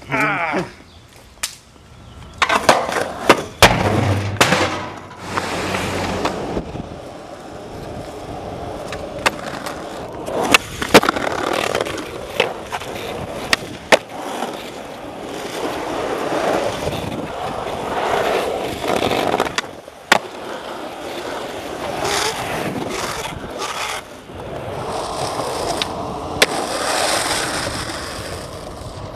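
Skateboard wheels rolling over asphalt, broken by several sharp clacks of the board popping and landing.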